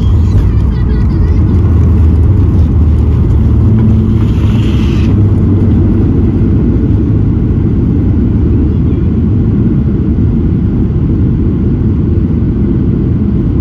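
Inside the cabin of a Boeing 737-800 rolling out on the runway after landing: a loud, steady low rumble from the wheels and engines. It swells right at the start, and there is a brief hiss about four seconds in.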